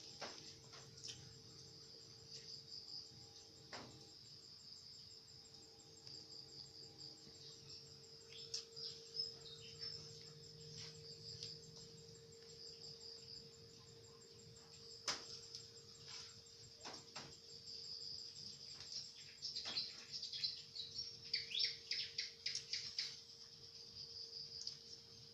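Night insects chirping in a steady, high, fast-pulsing trill, with a few faint clicks and knocks. A quick run of short chirps falling in pitch comes near the end.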